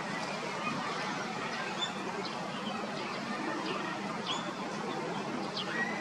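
Shallow stream running steadily, with scattered short, high chirps from small birds.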